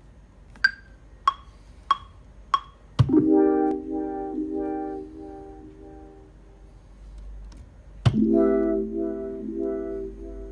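A four-click metronome count-in, first click higher, then mellow electric-piano-style synth chords triggered from an Ableton Push pad controller. One chord is struck about three seconds in and rings out with a slight pulse, and a second is struck about eight seconds in.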